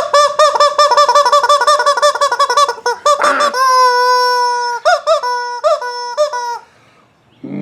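Rubber chicken toy squeezed, letting out a loud warbling squawk for about three seconds, a brief hiss, then one long steady honk followed by a few short honks, stopping about six and a half seconds in.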